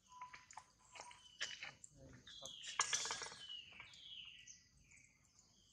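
Animal calls: a string of short, high calls, each falling in pitch, loudest about three seconds in, among scattered light clicks and ticks.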